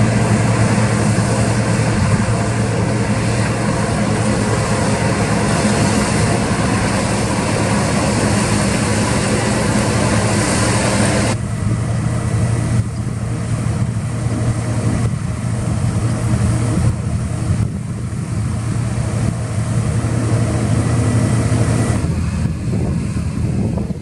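New Holland CX 860 combine harvester working a wheat field: a steady loud engine drone under a dense rushing hiss from the header and threshing gear. About 11 seconds in the hiss cuts off abruptly, leaving a steadier engine hum from the combine and a tractor as grain is unloaded into a trailer.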